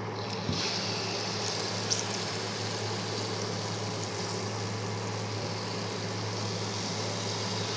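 Tel pitha batter deep-frying in hot oil in a karahi, a steady sizzle of bubbling oil that grows louder about half a second in as the fresh batter starts to fry.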